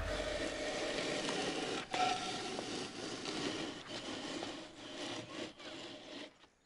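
Rough scraping and rubbing on aerated concrete blocks as a man works the top of a block wall by hand, with a few light knocks. It fades out near the end.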